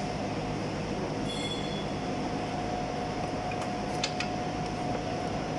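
Steady hum of workshop machinery with a constant whine, and a short light click about four seconds in.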